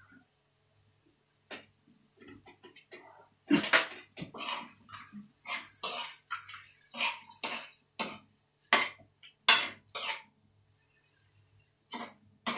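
A person coughing in a fit: a run of harsh, irregular coughs starting about three and a half seconds in and lasting some six seconds, with a few more coughs near the end.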